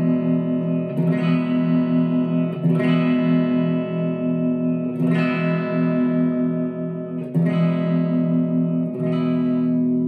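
Harley Benton SC-450 Plus solid-body electric guitar through an amp on a clean channel: five chords strummed and left to ring, while the tone control is being tried out. Its effect on this pickup is strangely less responsive than on the neck pickup.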